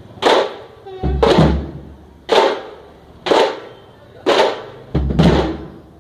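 A band of tamate, South Indian frame drums beaten with sticks, playing a slow, heavy beat of about one loud stroke a second. There are deeper double strokes about a second in and near the end.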